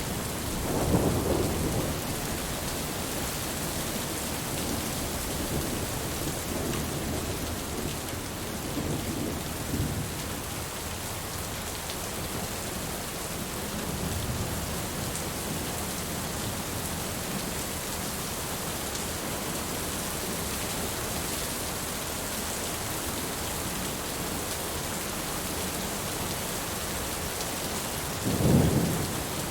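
Steady rain falling, with low thunder rumbles: a louder one about a second in and another near the end, and fainter ones in between.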